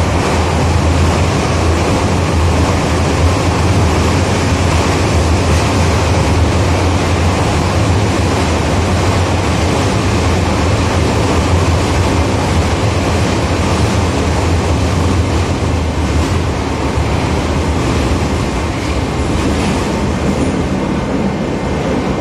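Interior of a moving 81-717.5 metro car: a steady, loud rumble of wheels on the rails with a low hum underneath, easing slightly near the end.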